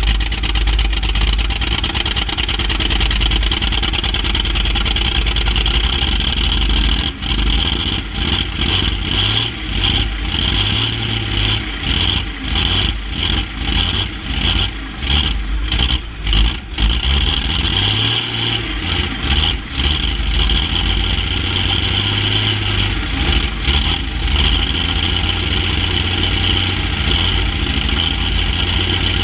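Allis-Chalmers 345's engine running just after a cold start, heard close to its exhaust stack. It runs steadily, then for several seconds fires unevenly with short dips and a couple of brief rises in speed, before settling back into a steady idle.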